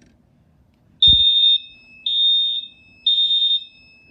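Fire alarm horns sounding the temporal-3 evacuation pattern: three loud, high-pitched half-second blasts about a second apart, then a pause. A low thump lands as the first blast starts about a second in, and a faint steady high tone runs underneath.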